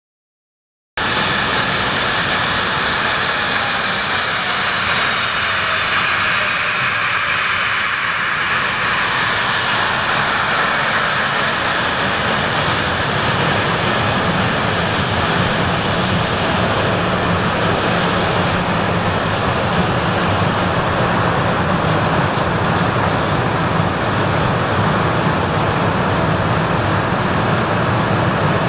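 Boeing 737-800's CFM56-7B turbofan engines running as the airliner rolls along the runway: a loud, steady jet noise that starts about a second in, with a faint whine falling in pitch over the first several seconds.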